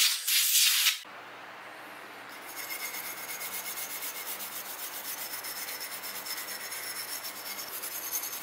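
A loud hiss for about the first second, then a stiff brush scrubbing rapidly back and forth over an engraved brass medallion, several scratchy strokes a second, sweeping away chips.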